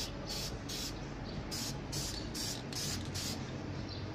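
Aerosol spray-paint can hissing in about eight short bursts over the first three and a half seconds, then stopping.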